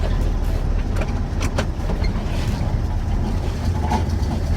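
Ranger pickup truck driving, heard from inside the cab: a steady low engine and exhaust drone with a few short clicks and rattles, about a second and a half in and again near the end.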